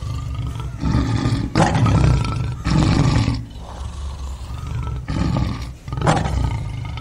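Recorded big-cat roars played as sound effects: several loud roars in a row, with lower growling between them.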